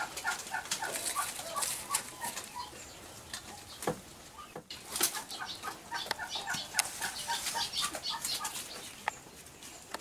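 Goats feeding on cut greens and palm fronds, the leaves crackling and rustling with scattered sharp clicks. Behind them come runs of quick bird chirps.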